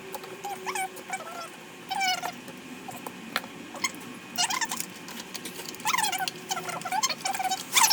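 Repeated short, high squeaks and chirps from a small pet animal, coming at irregular intervals.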